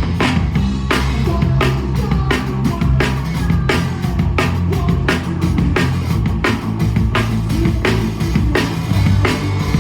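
A live rock band playing a song, with the drum kit loud and hitting steadily over heavy bass.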